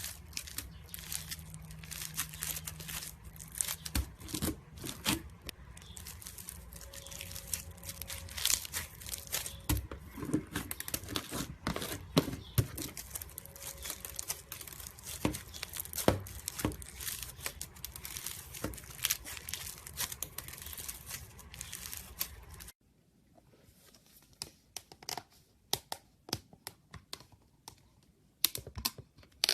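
Dense crackling and crinkling, like something being torn or crumpled by hand, which cuts off abruptly about 23 seconds in, leaving only scattered faint clicks.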